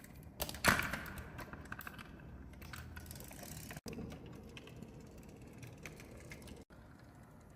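Marbles rolling and clattering down a toy marble run: one sharp clack a little under a second in, then a rapid patter of small clicks, with scattered clicks after.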